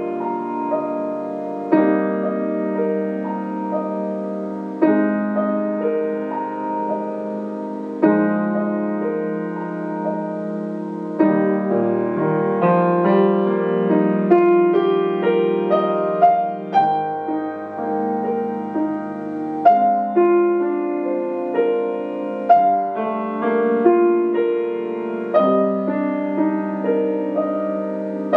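Solo piano playing a slow, rubato piece: chords struck about every three seconds and left to ring and fade, with quicker, higher notes layered over them in the middle stretch.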